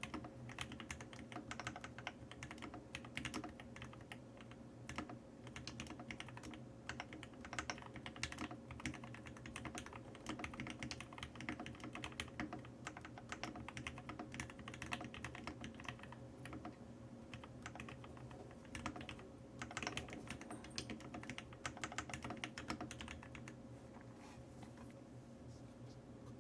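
Fast typing on an Oceanographer mechanical keyboard with lubed, filmed Everglide Tourmaline Blue tactile switches and HuB keycaps: a dense, steady stream of keystroke clacks that thins out to a few scattered strokes near the end.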